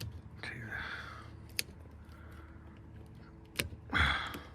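Prying at a GMC truck's stuck door trim: two sharp clicks of the parts being worked, with a breathy exhale about half a second in and a louder one near the end.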